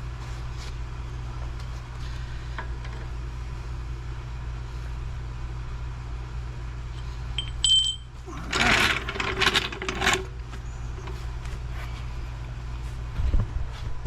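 Workshop handling noise while a lathe is jacked and blocked: a steady low hum, a brief high tone, then about two seconds of loud rough scraping and rattling just past the middle, and a few knocks near the end.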